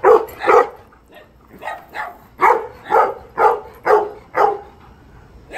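A dog barking in a run of short barks, roughly two a second. There are a couple of barks, a pause of about a second, then a longer string that stops shortly before the end.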